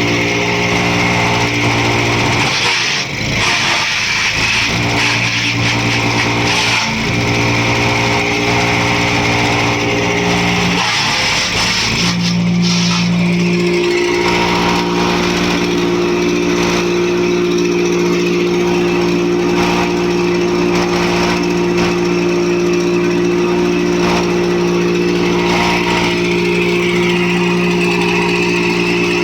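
Wood chipper running with a steady engine note. Its pitch wavers and dips a few times in the first twelve seconds, then holds steady.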